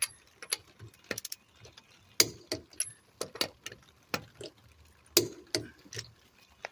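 Sharp metallic clicks and clinks at uneven intervals, a few louder than the rest, some with a brief high ring: a click-type torque wrench set to 110 ft-lb clicking as the lug nuts reach torque, amid the clink of the wrench and socket on the wheel.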